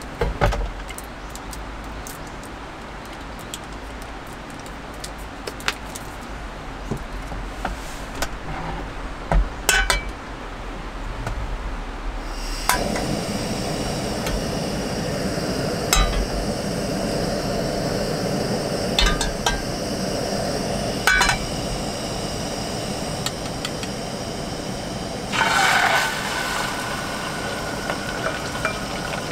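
Light clinks and taps of kitchenware, a few at a time. About halfway through, a steady hiss starts suddenly and carries on, with a few more clinks over it.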